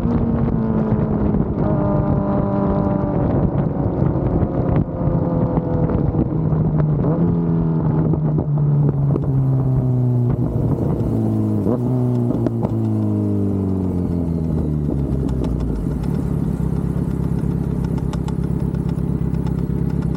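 Kawasaki Z900 inline-four engine through an aftermarket Akrapovič exhaust, its note falling in several steps as the revs come down, then settling into a steady idle for the last few seconds.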